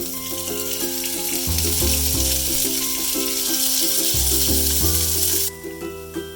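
Food sizzling as it fries in a pan, a loud hiss that cuts off sharply near the end, over background music.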